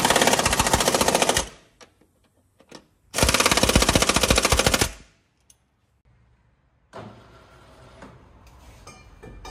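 Pneumatic impact wrench hammering in two bursts of about a second and a half each, a couple of seconds apart.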